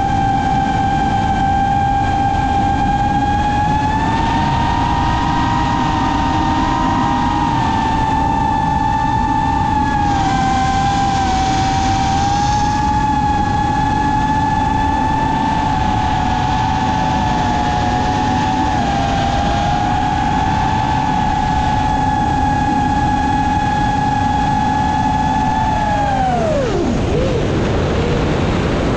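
FPV racing quadcopter's brushless motors and propellers whining steadily at high throttle over a rush of wind noise. The pitch drops sharply near the end as the throttle is cut for a tumbling dive, then begins to climb again.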